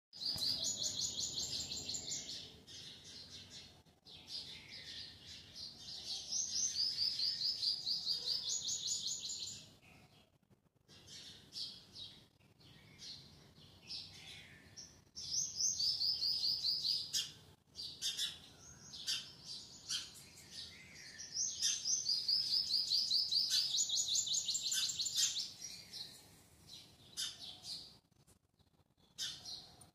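Songbird singing in rapid, high trills, phrase after phrase of a few seconds each with short breaks between.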